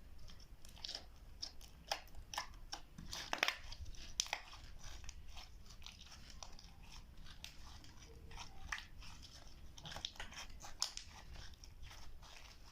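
Slime being kneaded and pressed by hand, giving a run of irregular sticky clicks and crackles that come thickest a few seconds in and again near the end.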